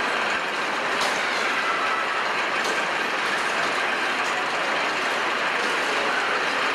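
Screechin' Eagle wooden roller coaster's lift chain clattering steadily as a train is hauled up the lift hill.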